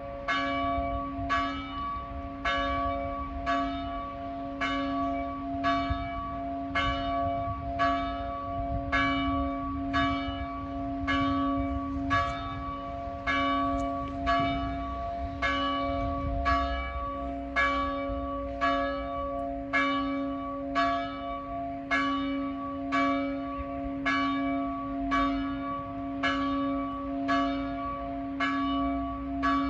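The largest church bell, cast in 1948 by the Silesia Bell Foundry, ringing steadily with a stroke about once a second, its deep hum carrying on between strokes.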